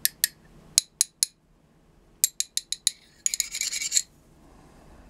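Steel ratcheting combination wrenches being handled. Scattered sharp metal clicks and clinks, a quick run of about five clicks a little past two seconds in, then a short rasping burst about three seconds in.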